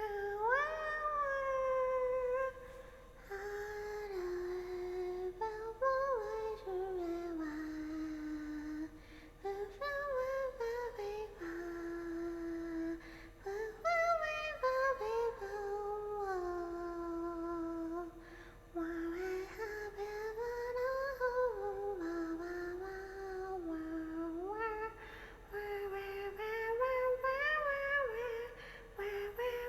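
A young woman's wordless vocal cries while drinking, long drawn-out notes that slide up and down in pitch, somewhere between humming, singing and mewing, with only brief breaks between them.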